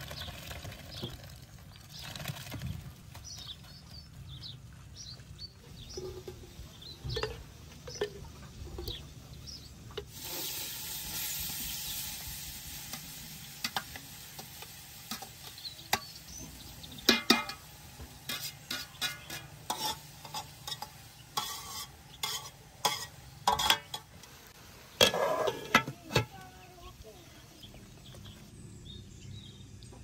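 Metal cookware clinking and knocking as rice is handled in a metal colander and pot, with a quick run of sharp knocks in the second half. About ten seconds in there is a few seconds of steady hiss.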